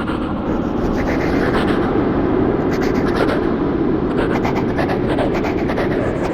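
A steady, dense rumbling, grinding noise with scratchy crackles on top: a dark horror sound effect.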